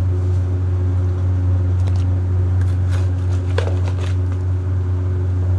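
Loud steady low hum of kitchen machinery, with a few faint clicks and scrapes of a metal spoon in a plastic bucket of blended green seasoning about two to four seconds in.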